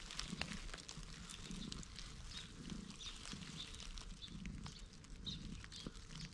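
A tabby-and-white stray cat purring softly while being stroked, the purr coming in even pulses about twice a second. Faint crackles of dry leaves come and go.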